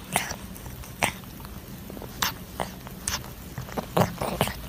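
Several cats licking wall-mounted lick treats: a string of short, wet tongue clicks and smacks at irregular intervals, the loudest about four seconds in.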